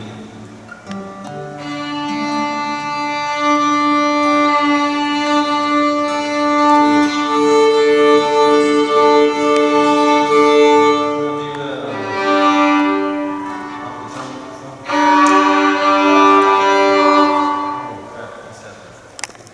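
Violin bowed in long held notes, often two at once, swelling and easing in three phrases and fading out near the end.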